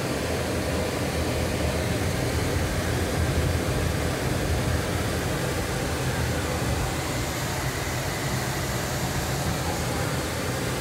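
Steady car cabin noise while driving on a dirt road: a low engine hum with road and tyre rumble, heard from inside the car.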